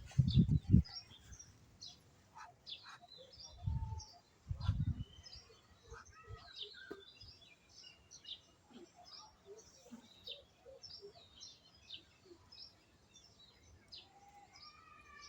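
Small birds chirping and twittering in short, scattered notes, with a few dull thumps in the first five seconds.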